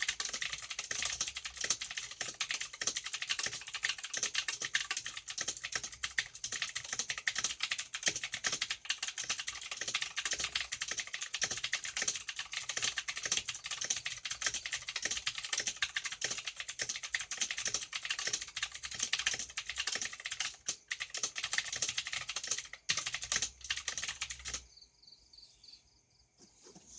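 Fast, continuous typing on a Zanfu mechanical keyboard with clicky blue switches, a dense stream of key clicks that stops near the end. The keyboard is two to three years old and its space bar has lost its click.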